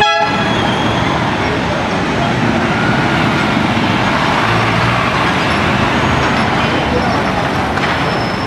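Busy street traffic: motorcycle and car engines running and passing, with a short horn toot right at the start and voices in the background.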